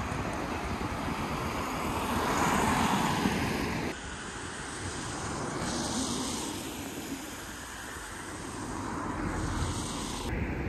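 Outdoor wind noise on the microphone mixed with road traffic. A swell of noise builds in the first few seconds and cuts off abruptly about four seconds in.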